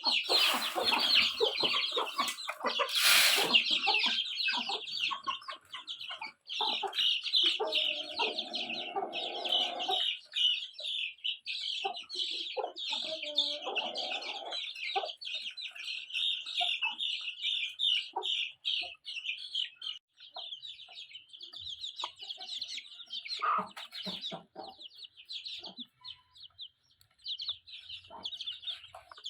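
Chickens clucking and peeping nonstop, a dense high chatter with lower clucks now and then. There is a sharp knock about three seconds in.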